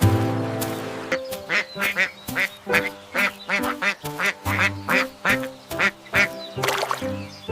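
A duck quacking repeatedly, about two quacks a second, over background music.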